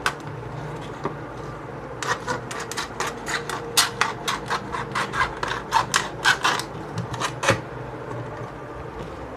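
Thin plastic soft-drink bottle crackling in sharp, irregular clicks, about three or four a second, as a hole is worked into its side with a pointed tool, over a steady low hum.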